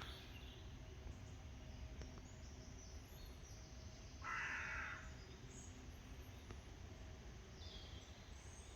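A single harsh bird call about four seconds in, over a faint, steady low rumble.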